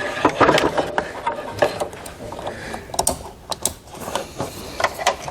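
Plastic trailer-wiring harness plugs being handled and pushed onto the factory tail-light plugs, an irregular run of sharp plastic clicks and rattles.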